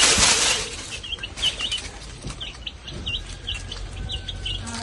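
Young chicks peeping as they feed: short, high peeps at about three a second. A loud rustle fills the first moment.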